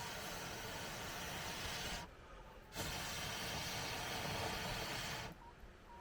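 Two long blows of air through a blow tube into a wood fire, each lasting about two and a half seconds, with a short pause for breath between them.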